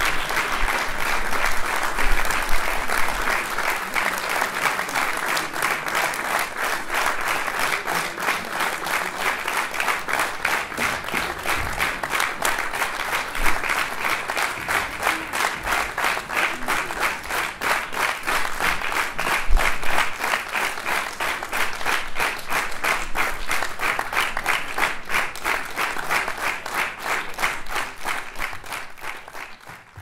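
Audience applauding: a dense wash of clapping that thins out into fewer, more distinct claps and fades away near the end.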